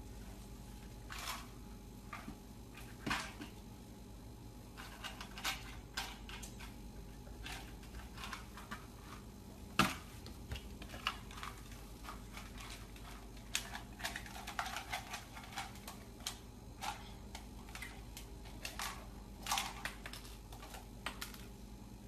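Scattered, irregular light taps and clicks on a hardwood floor from a baby's hands patting the boards and handling small snack crackers, with a quick run of clicks around the middle.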